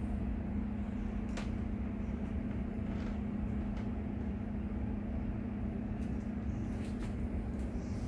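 A steady low machine hum with a few faint clicks.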